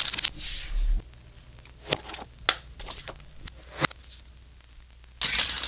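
Hands handling a photobook and turning its pages: paper rustling, louder in the first second and again near the end, with a few sharp taps and page flicks in between.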